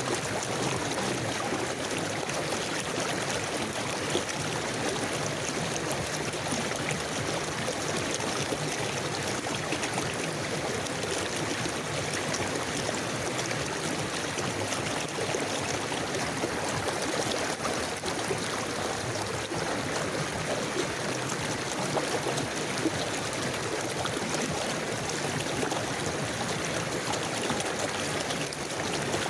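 Forest river flowing: a steady rush of running water with trickling and gurgling.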